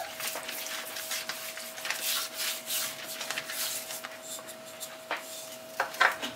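Hands rubbing salt into the skin of a raw pork hock on a metal tray: a scrubbing sound in repeated strokes, with a few light knocks near the end. A faint steady hum runs underneath.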